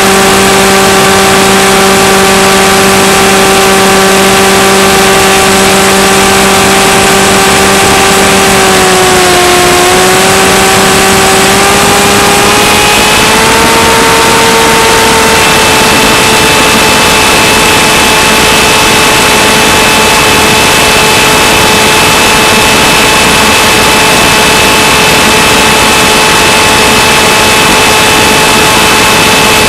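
Electric motor and propeller of a Skywalker FPV plane humming in flight over a loud steady hiss. The hum dips in pitch about nine seconds in, then rises about thirteen seconds in and holds steady at the higher pitch, with return-to-home mode engaged and the motor drawing more current.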